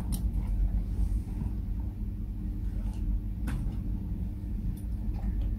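Steady low rumble of stable background noise, with a sharp click about three and a half seconds in and a few faint ticks.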